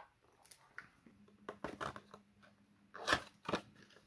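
A cardboard trading-card blaster box and its plastic wrap being torn open and handled: irregular crinkling, rustling and sharp snaps, the loudest about three seconds in.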